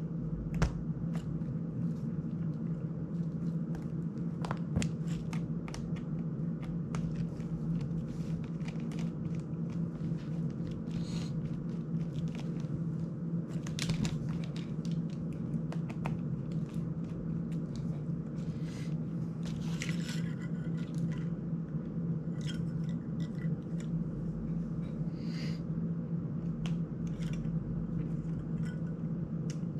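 Scattered small clicks and scrapes of a precision screwdriver working the standoff screws of a GEPRC CineLog 35 FPV drone's frame, and of the frame and small parts being handled, over a steady low hum.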